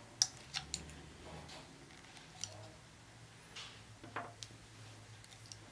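A caulking gun clicking irregularly as its trigger is squeezed to push silicone sealant into a small plastic end cap, with light handling noise. The clicks are sharp and sparse: several in the first second, then a few more near the middle and end.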